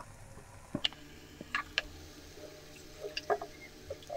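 Thick ground green-pea paste poured from a steel mixer jar into a pan of fried masala: a few scattered soft wet plops and light ticks.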